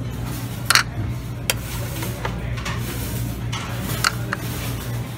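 Serving tongs clicking against a stainless steel steam-table pan as lemon wedges are picked up and dropped into a bowl: a few sharp clacks, the loudest about a second in. A steady low hum from the buffet room runs underneath.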